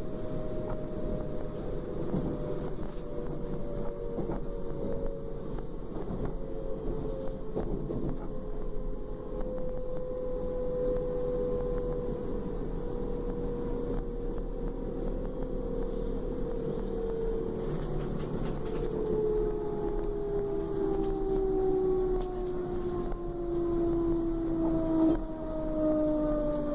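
DB Class 425 electric multiple unit heard from on board: the whine of its traction drive, several tones falling slowly and steadily in pitch as the train slows, over a rolling rumble. The whine grows louder near the end.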